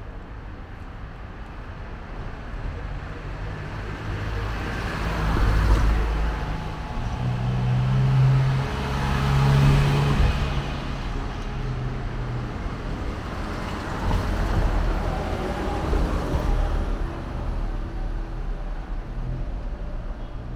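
A light truck drives past close by on the street, its engine getting louder, peaking around the middle and then fading, over a steady background of traffic. A second, smaller swell of passing traffic follows a few seconds later.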